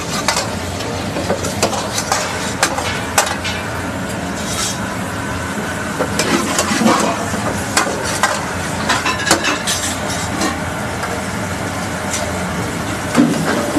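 Butter chicken frying in an iron pan over a high gas flame: a steady burner roar with sizzling, and the ladle scraping and knocking against the pan every second or so.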